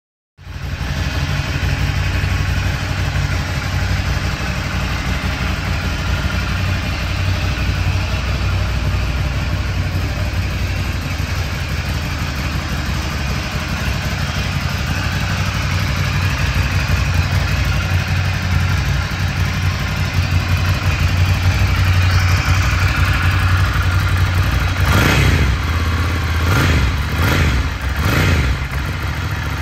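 Ducati Scrambler's air-cooled L-twin engine idling through its original stock exhaust. In the last few seconds it gives about five quick throttle blips, each rising and falling in pitch.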